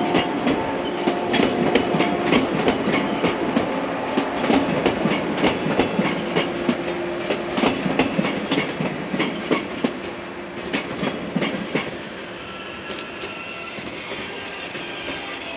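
Electric multiple-unit train running on jointed track: a steady clickety-clack of wheels over rail joints, growing fainter after about ten seconds as the train draws away.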